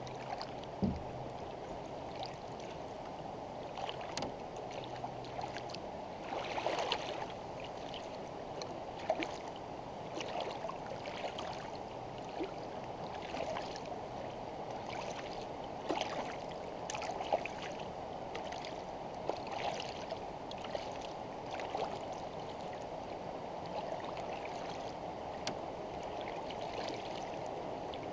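Canoe paddle strokes in calm river water: light, irregular splashes and drips every second or two over a steady wash of water along the hull.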